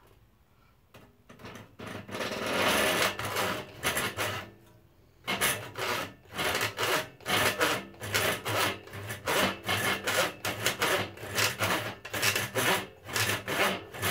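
Hand saw cutting a sheet of HDPE cutting-board plastic. The cut starts with light scraping and a long first stretch of sawing, pauses briefly about five seconds in, then settles into steady back-and-forth strokes about two a second.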